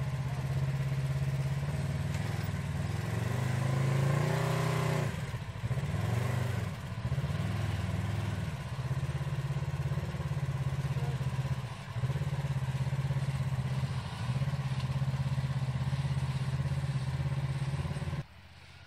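ATV engine running at low speed, its pitch rising and falling as the throttle is worked on and off over rocks, with a short rev about four seconds in. The engine sound cuts off suddenly near the end.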